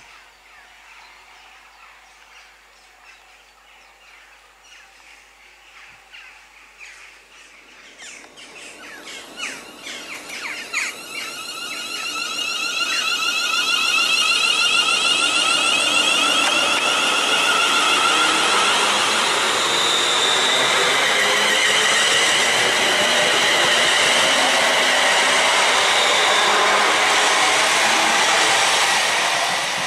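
ScotRail Class 380 Siemens Desiro electric multiple unit running past close by. It starts faint, with clicks of wheels over the rails building about eight seconds in. From about twelve seconds it becomes a loud, steady rush of wheels and air with a whine of several tones, easing slightly at the very end.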